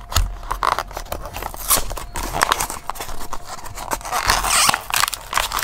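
Plastic blister pack and cardboard backing card of a Matchbox diecast car crackling and clicking as it is pulled open by hand, with a denser crinkling crackle near the end.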